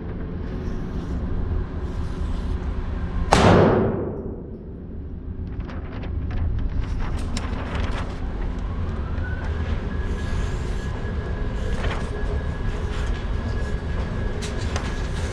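A single 9mm pistol shot a little over three seconds in, with a long echoing decay, over a steady low rumble. Fainter sharp clicks follow later, and a steady high tone comes in about halfway and stops near the end.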